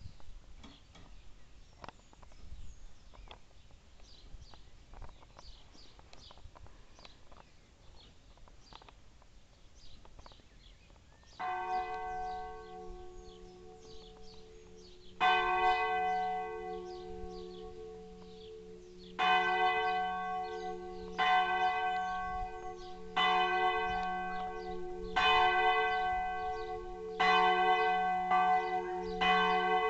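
The campanone, the largest of a four-bell church tower, swung by computer control and ringing 'a distesa' for the midday peal. After about eleven seconds of faint background the first stroke sounds, a second follows about four seconds later, and then strokes come about every two seconds, each ringing on and overlapping the next as the swing builds.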